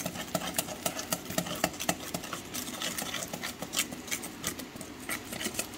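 Wire whisk beating batter in a stainless steel bowl, the tines clicking and scraping against the metal several times a second.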